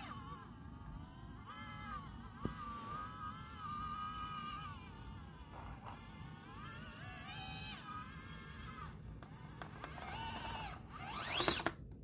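Axial SCX24 micro crawler's electric motor and drivetrain whining under throttle as it climbs rocks, the pitch rising and falling as the throttle is worked and stopping briefly a few times. A single sharp click about two and a half seconds in, and a steep rising whine near the end as the motor is revved hard.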